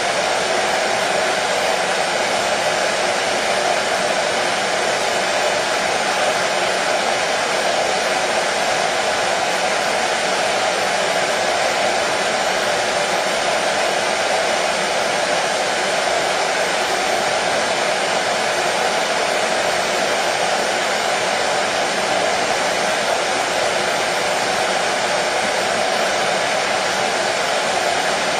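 Hair dryer running steadily, a constant even blowing whoosh with a faint motor hum and no change in pitch or level.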